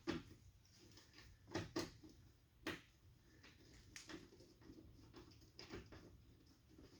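Scattered light clicks and taps, about six, from hand tools and small parts being handled, with the loudest near the start and between one and a half and three seconds in.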